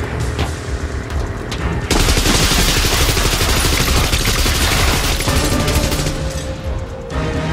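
Automatic rifle fire on a film soundtrack: a dense, continuous string of rapid shots that starts about two seconds in, runs for about four seconds and then tails off.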